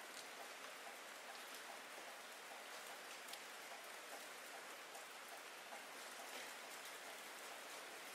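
Steady rain: an even hiss with faint, scattered drop ticks through it.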